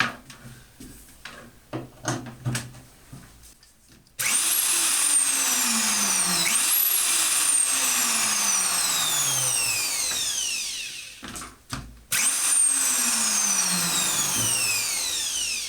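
Einhell TH-RO 1100 E 1100-watt electric plunge router switched on with a very sharp start, running at high speed with a high whine. It runs about six seconds, winds down once the trigger is released, and is switched on again near the end. A few faint handling clicks come before the first start.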